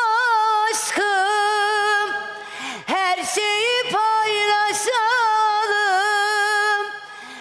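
A woman singing alone, without backing instruments, in a Turkish vocal style. She holds long wordless notes with wavering ornamental turns, taking short breaks between phrases, and her voice fades near the end.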